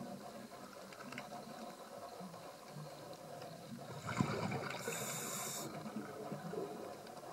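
Underwater ambience: a steady watery hiss, with a louder gushing rush about four seconds in that lasts a second or so.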